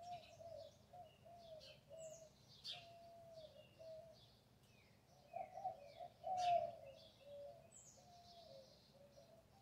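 Several birds singing and calling at once: a run of low, short, bending notes with higher chirps above them, loudest about six seconds in, over a faint steady background rumble.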